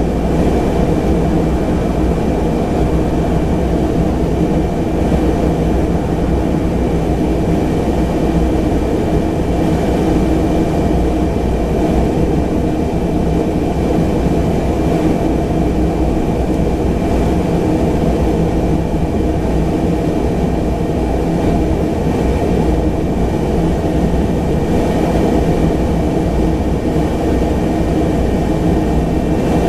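Pilatus PC-12's single Pratt & Whitney PT6A turboprop engine running steadily at taxi power, heard from inside the passenger cabin: an even drone with a faint steady high whine.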